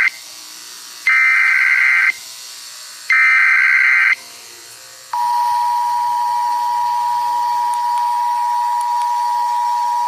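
Emergency Alert System tones: three harsh electronic data bursts about a second long and a second apart (the SAME header), then, about five seconds in, the steady two-tone EAS attention signal starts and holds.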